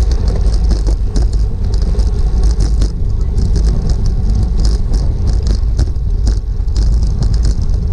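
Wind rushing over an action camera's microphone on a racing bicycle at speed, a steady low rumble with road and tyre noise underneath.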